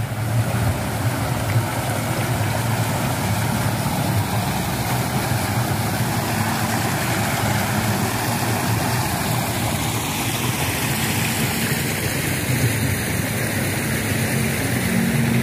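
Small motorcycle engine running steadily at low speed, with an even hiss of noise over it.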